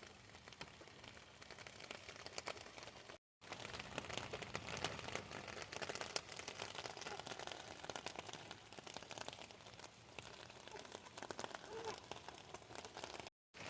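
Light rain pattering, a soft steady hiss dotted with many small drop ticks, broken twice by a brief total silence.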